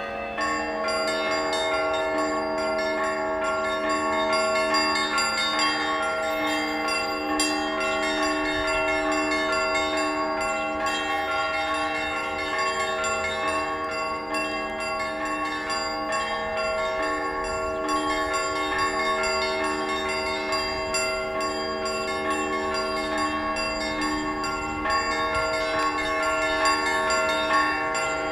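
Church bells ringing: repeated strokes overlap into a continuous wash of ringing tones, getting louder just after the start and then holding steady.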